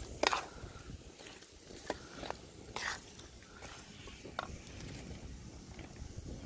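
Metal spatula stirring chunks of sweet potato in sticky caramel sauce in a steel wok: scattered scrapes and clicks against the pan, irregular, with the loudest near the start and around the middle.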